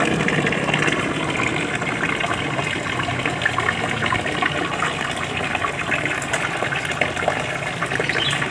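Water pouring steadily from a wall pipe into a shallow, drained concrete fish pond and splashing, with scattered small splashes from nets working in the water and a low steady hum underneath.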